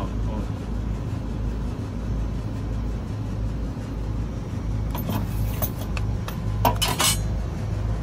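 Daikin VRV III outdoor unit running with a steady low hum, pushing oil out of its opened oil-return line. A few short metallic clinks come about five and seven seconds in.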